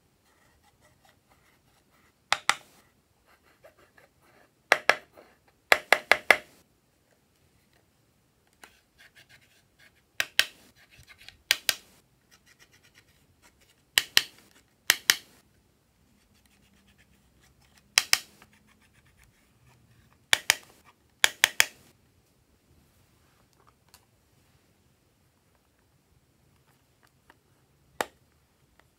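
Swab scraping pressed eyeshadow powder out of a palette pan, in short bursts of rapid scratching strokes every few seconds, about eleven bursts. A single sharp click near the end.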